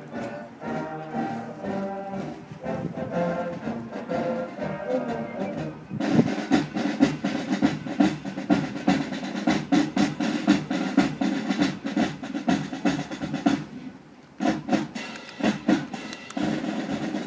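High school marching band playing. A softer passage of held wind notes gives way about six seconds in to the full band, loud brass over dense drum strokes. The sound dips briefly about fourteen seconds in, then the band comes back in loud.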